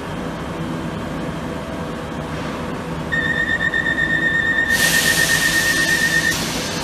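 Train passenger-door closing alarm: a high, rapidly pulsing beep that starts about three seconds in and sounds for about three seconds. Partway through, a loud hiss of air joins it as the doors begin to close, over the steady hum of the standing train.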